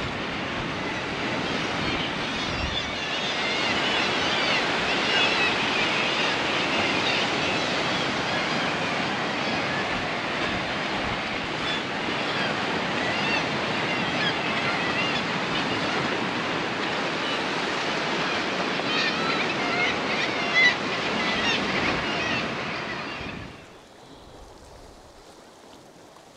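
Sea surf washing against rocks below sea cliffs, a steady rushing noise that drops suddenly to a much quieter wash a few seconds before the end.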